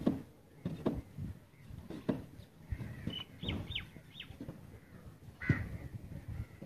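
Birds calling: a quick run of three or four short high falling chirps a little past the middle, and a louder call about five and a half seconds in, over scattered dull low thuds.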